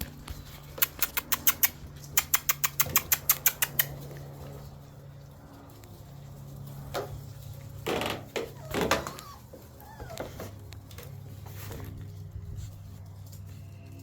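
A quick run of sharp clicks, about five a second, followed a few seconds later by short whimpers and squeaks from Shiba Inu puppies.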